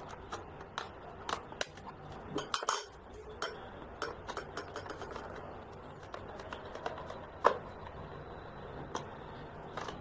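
Screwdriver driving the bottom-cover screws of a Lenovo G50 laptop back in: scattered light clicks and ticks of metal on the screws and the cover, with a cluster a little before three seconds and a sharper click about seven and a half seconds in.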